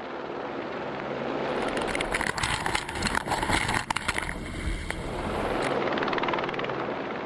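Helicopter hovering close by with a bridge cable slung beneath it. Its rotor and engine noise is steady and grows slowly louder, with scattered crackles and clicks in the middle.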